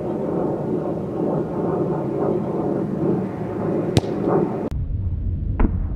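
A football struck hard by a kicking foot: one sharp thud about four seconds in, over a steady background hiss. Just after it, the sound cuts abruptly to a deep low rumble, with one more thud in it.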